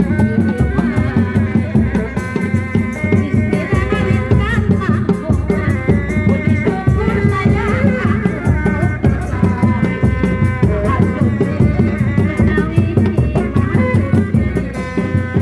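Kuda lumping accompaniment music: dense, fast drumming with shaken, rattling percussion and a wavering melodic line above it.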